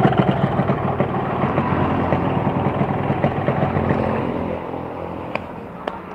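Yamaha RX-King's single-cylinder two-stroke engine idling with a fast, even beat, getting quieter about four seconds in. Two sharp clicks near the end.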